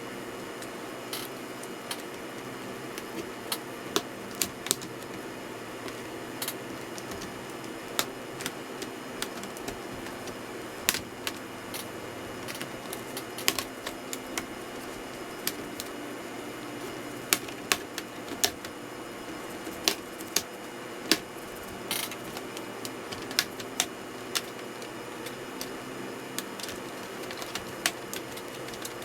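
Irregular sharp clicks and taps of small hard objects being handled, about one or two a second with pauses, over a steady low hum.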